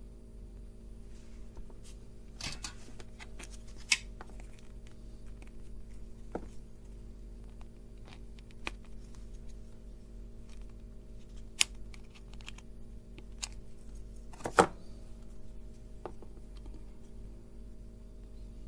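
Small handling clicks and taps of tools and electronic components while a circuit-board kit is assembled, with a few sharp clicks like lead snips, the loudest about three-quarters through, over a steady low hum.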